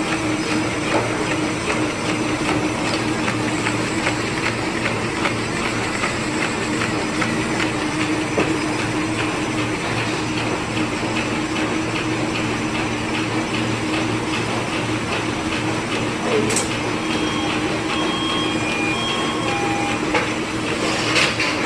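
Automatic folder-gluer machine running with its belts carrying printed cardboard box blanks through: a steady mechanical hum with a continuous fast clatter.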